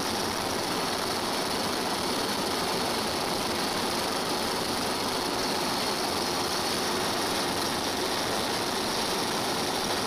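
Steady aircraft engine noise heard from inside the aircraft filming from above: a constant drone with rushing air and a hiss, unchanging in level.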